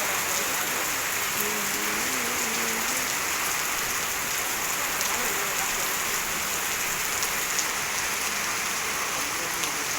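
Steady rain falling, a dense even hiss with occasional faint drop ticks.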